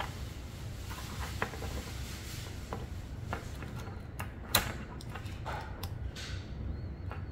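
Scattered small clicks and taps of kit parts being handled and fitted together, one sharper click about four and a half seconds in, over a steady low hum.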